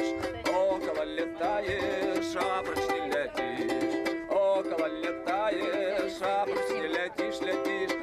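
A balalaika strummed rapidly, playing a tune.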